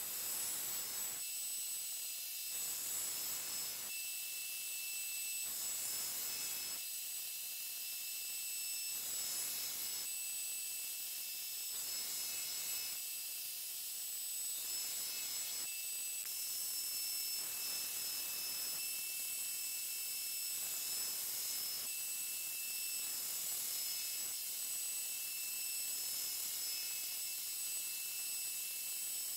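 Belt grinder running with a steady high whine and hiss, as a 52100 carbon-steel knife blade is pressed against the abrasive belt in repeated passes, each pass adding a rougher grinding rush every couple of seconds.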